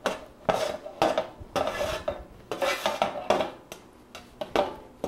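A spatula scraping roasted asparagus across a metal baking sheet into a bowl, in a run of short repeated scrapes, about one or two a second.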